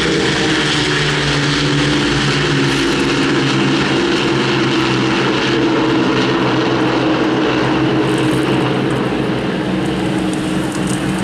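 Avro Lancaster B1's four Rolls-Royce Merlin V12 piston engines droning as the bomber flies past, a steady propeller-aircraft drone whose pitch drifts slowly.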